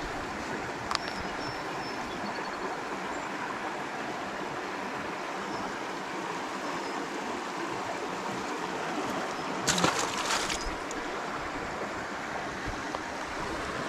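Creek water flowing steadily, an even rushing sound, with a short louder crackling burst about ten seconds in.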